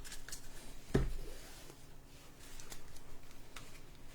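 Trading cards being handled and flipped one after another: faint light clicks and card rustles, with a single soft thump about a second in.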